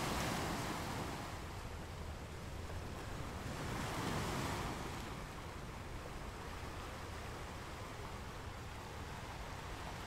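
Waves crashing: a surge of surf at the start and another about four seconds in, then a steadier, softer wash of water.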